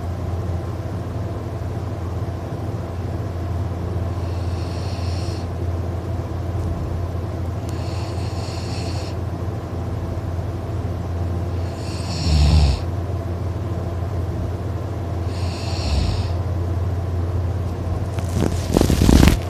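A person asleep and snoring, breathing with a hiss about every four seconds and giving a short low snore about twelve seconds in, over a steady low hum. Louder irregular noise comes near the end.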